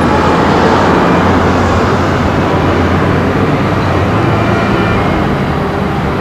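Road traffic: a loud, steady rumble of passing cars and buses, with a low engine hum underneath.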